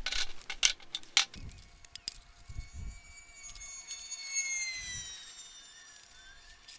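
Metal poles of an ultralight folding camping chair clicking and knocking as they are fitted into its plastic hub and feet, with soft handling thumps; most of the clicks come in the first second or so. Through the middle a faint high tone slowly falls in pitch.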